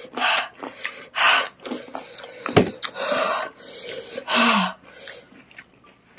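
Sharp breaths hissed in and out through an open mouth, about five noisy puffs, from a mouth burning after eating a super-hot chili chip. A short click sounds about halfway through.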